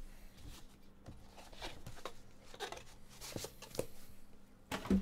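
Cardboard card box and its packaging handled and set aside on a table: scattered light rustles and small knocks, with a couple of louder knocks near the end.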